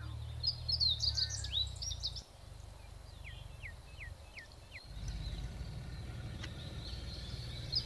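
Small birds chirping and calling, with a run of about five short falling whistle notes in the middle, over a low steady rumble.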